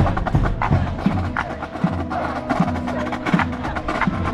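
Drum and bugle corps playing: crisp percussion strokes over short, low brass notes from the contrabass bugles.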